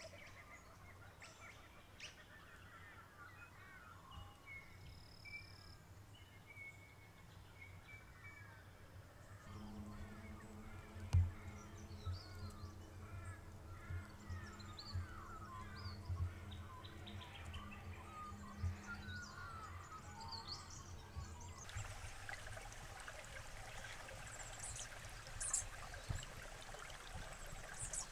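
Quiet bush ambience with small birds chirping on and off. A steady low drone joins about a third of the way in and drops out later, and a hiss like running water comes in near the end.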